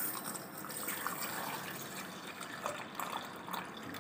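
Full-cream milk poured in a thin stream from a steel bowl into a steel mixer-grinder jar: a steady trickling, splashing fill.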